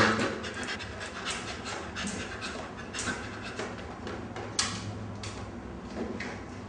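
A dog panting in a run of short breaths, with a sharp click about four and a half seconds in.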